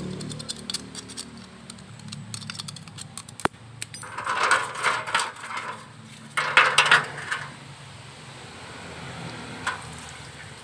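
Small metal tools and parts clinking and rattling as they are handled, with scattered clicks and two bursts of rattling about four and six and a half seconds in.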